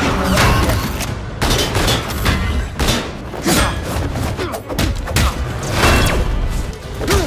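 Action-film fight soundtrack: a string of gunshots, booms and heavy thuds over an orchestral score.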